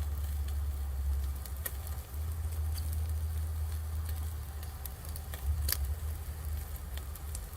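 Pork ham steaks in barbecue sauce cooking: a few sharp crackles and pops of spitting fat over a steady low hum.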